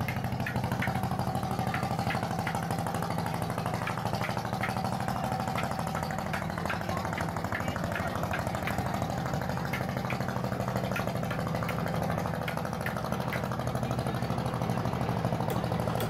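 A small engine idling steadily, an even low hum with light ticking over it.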